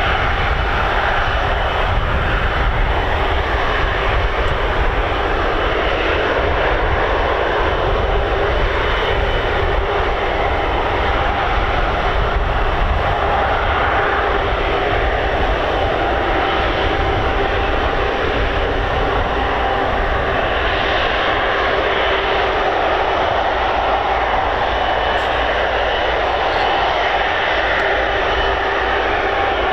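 Large fixed-wing aircraft's engines running steadily: a constant whine with a few held tones over a heavy low rumble, holding the same level throughout.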